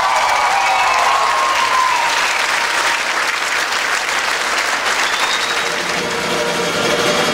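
Audience applauding steadily as a dance number ends, with held notes of the closing music fading out over the first couple of seconds.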